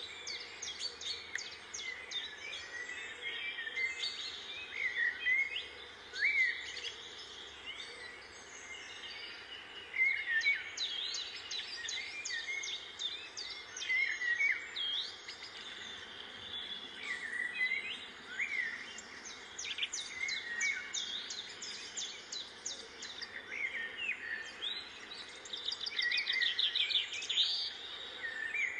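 Small birds chirping and twittering, with short, quick up-and-down notes coming in clusters and a fast run of chirps near the end.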